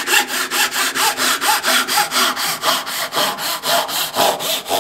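A fine-bladed hand saw cutting through a thin wooden strip in quick, even back-and-forth strokes, about five a second.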